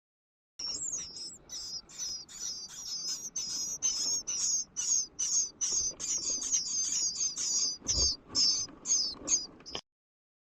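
Bluebird nestlings in a nest box giving a rapid run of high, wavering begging chirps, about three or four a second, which cut off suddenly near the end. A low knock against the box sounds about eight seconds in.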